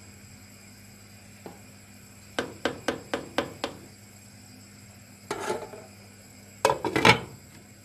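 Stirring utensil knocking and scraping against a metal cooking pot of soup: a quick run of six taps at about four a second, then a short scrape, then a loud clatter of knocks near the end.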